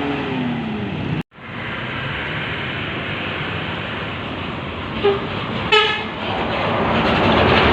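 A passing vehicle's horn sliding down in pitch as it fades out right at the start, then steady traffic noise of vehicles going by. The sound drops out completely for a moment about a second in, a short horn toot comes near six seconds in, and the road noise swells near the end.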